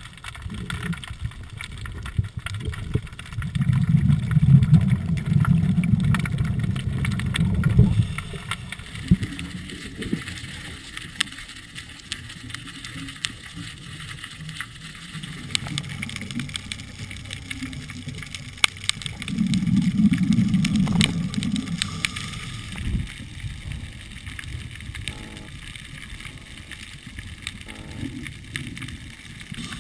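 Muffled underwater sound heard through a camera housing: a scuba diver's exhaled bubbles rumble twice, for about five seconds starting about three seconds in and again for about three seconds starting about nineteen seconds in. Scattered sharp clicks come in between.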